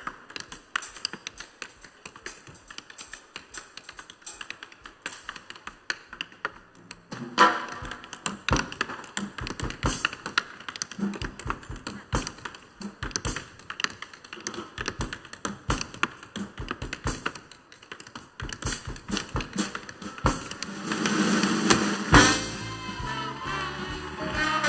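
Tap shoes striking a stage floor in quick, dense rhythms, unaccompanied at first. About seven seconds in, a jazz band with drums comes in and the taps carry on over it, the band getting louder near the end.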